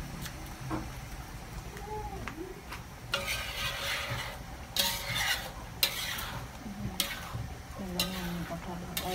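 A long metal spatula stirring and scraping in a steel wok of rice cooking in water, with a sizzle from the hot pan. The scraping strokes come about once a second from about three seconds in.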